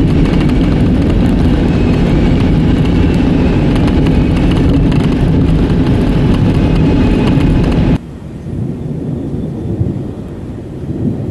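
Tyre and road noise heard inside a car driving on a wet highway, a dense steady rumble. About eight seconds in it cuts off abruptly to a quieter outdoor sound with a low rumble swelling near the end.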